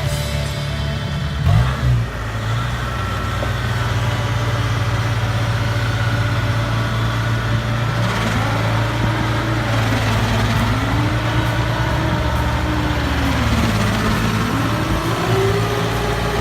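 Combine harvester's diesel engine running steadily, with its pitch rising and falling a few times in the second half as it is revved, then holding at a higher pitch near the end.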